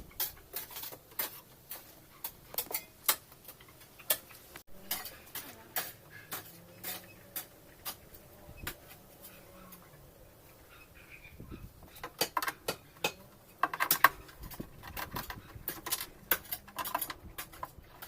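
Irregular clicks and light metallic clinks of hand tools and metal parts being handled, busiest and loudest in the last third.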